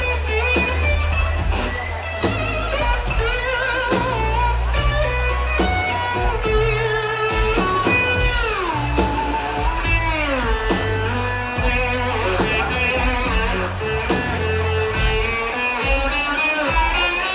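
Live blues-rock band playing an instrumental break: a slide guitar lead with notes that glide up and down, over guitar, bass and drums.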